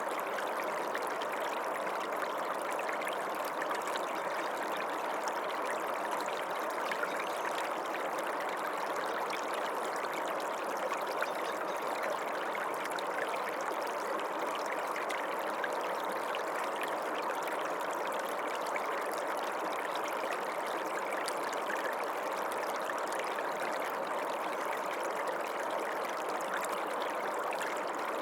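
Creek water running steadily over rocks, a continuous even rush with small trickles and splashes.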